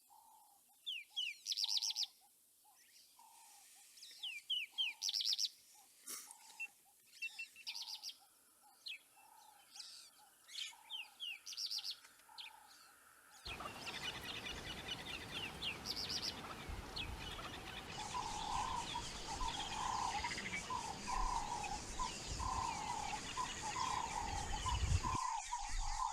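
Wild birds calling: short, high chirps and trills over a regular series of low, repeated notes. About halfway through, a steady rushing noise cuts in abruptly, and over it a fast run of low notes grows louder.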